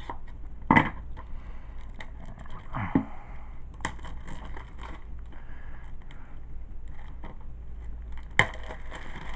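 Plastic DVD case being opened and handled: sharp clicks about a second in, around four seconds and loudest near the end, with soft scraping and rattling of the plastic in between.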